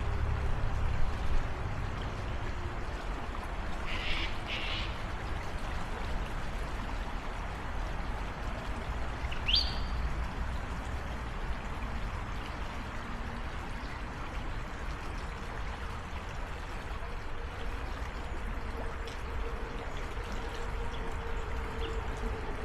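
Creek water flowing and splitting around a small island, a steady rushing and trickling. A bird calls briefly: two short notes about four seconds in, and a quick rising chirp about ten seconds in.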